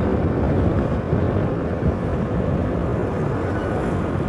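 Steady rumble of a moving vehicle on the road, engine and road noise running evenly with no distinct events.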